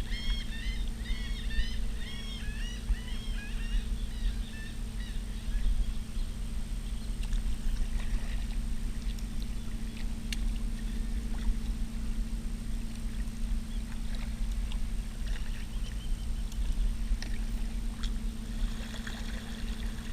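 Birds calling in a quick run of short, arched chirps for the first few seconds, over a steady low hum. A few faint clicks follow.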